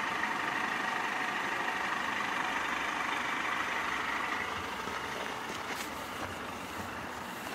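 A 2017 Mercedes-Benz E200's 2.0-litre turbocharged inline-four (M274) idling with a steady running sound that slowly fades over the last few seconds.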